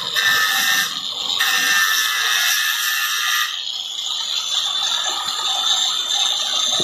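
Bosch angle grinder running at reduced speed through a variable voltage reducer, with a high-pitched whine over a steady motor hiss. The whine breaks off briefly about a second in and fades out about three and a half seconds in, leaving the steady running sound.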